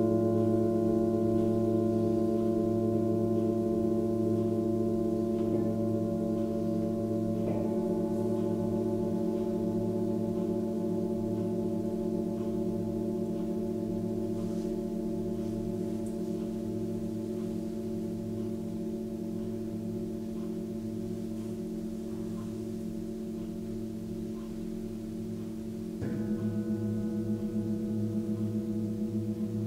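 Several seven-metal Tibetan singing bowls ringing together in long, overlapping tones with a slow wavering pulse, slowly fading after a few soft strikes. About 26 s in a bowl is struck again and the ringing swells back up.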